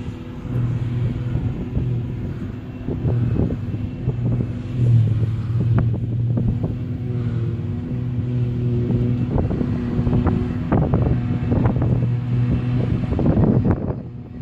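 Claas Jaguar 870 forage harvester running steadily while chopping grass, a constant droning hum, with the engine of the tractor and trailer driving alongside. Wind buffets the microphone in irregular gusts, strongest near the end.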